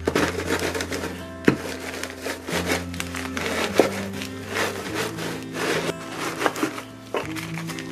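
Wooden rolling pin rolled over a plastic zip-top bag of Oreo cookies, crushing them into crumbs: gritty crunching and rubbing with sharp cracks, the loudest about a second and a half in and near four seconds in. Background music plays underneath with steady held notes.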